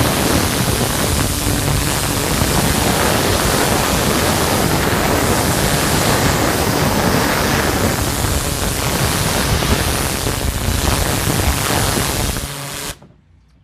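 High-pressure water spray from a 4000 PSI, 8 gallon-per-minute pressure washer blasting deck boards: a loud, steady rush of water. This is the rinse after the cleaning chemical has been applied. The rush cuts off suddenly near the end.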